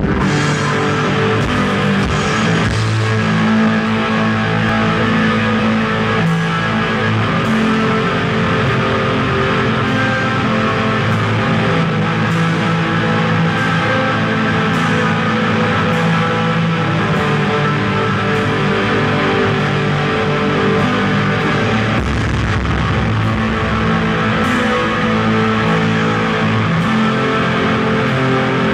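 Black metal band playing live: distorted electric guitar and drum kit in a loud, dense, unbroken wall of sound.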